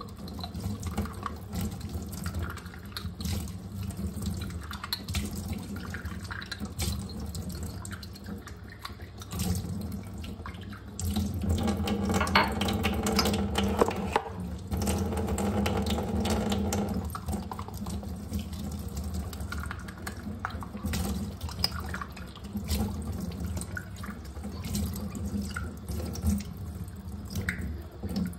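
Kitchen tap running into a sink while a porcelain cup is washed under the stream, with scattered light knocks of china against the sink.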